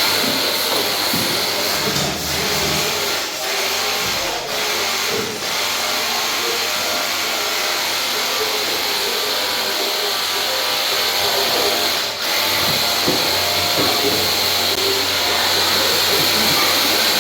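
Pressure washer running steadily with its spray hissing, dipping briefly a few times.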